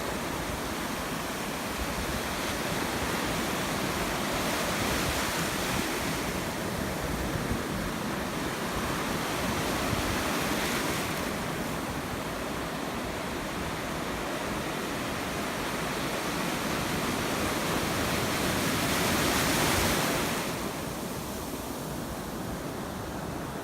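Ocean waves breaking and washing on a beach, a steady rush of surf that swells and eases every few seconds, with some wind on the microphone.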